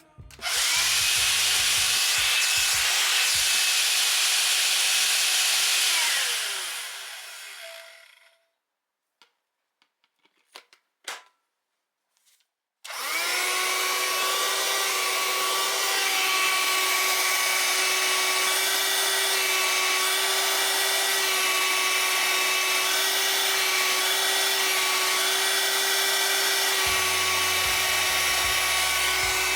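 Parkside PHSSA 20-Li C1 20 V cordless hand-held vacuum cleaner's motor switched on and running with a steady whine, winding down after about six seconds. A few light clicks follow in the pause, then the motor starts again at about thirteen seconds and runs steadily.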